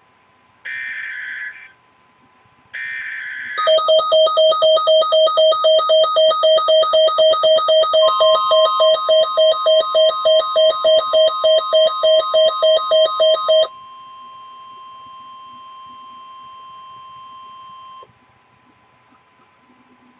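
Emergency Alert System broadcast tones: two short buzzy data bursts of the digital alert header, then a loud pulsing alert tone at about three to four beeps a second for about ten seconds. A steady, quieter single tone joins midway and carries on alone for a few seconds after the pulsing stops, then cuts off.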